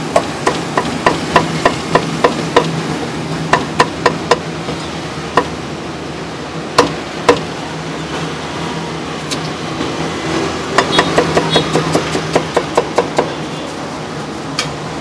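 Meat cleaver chopping on a thick round wooden chopping block: quick runs of sharp chops about three a second, a few single chops in the middle, then another run near the end, over a steady low hum.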